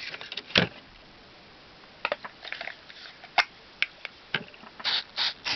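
Scattered plastic clicks and knocks as a Slot 1 CPU cartridge is unlatched and pulled out of its motherboard slot, with a sharp click in the middle and a few short hissing bursts near the end.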